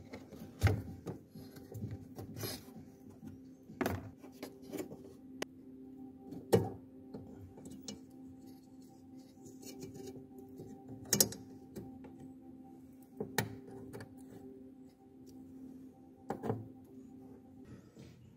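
Hands working at the back of a car headlight: scattered sharp plastic clicks and knocks, about seven, as the rear cover comes off and the H7 low-beam bulb and its connector are pulled out, over a steady low hum.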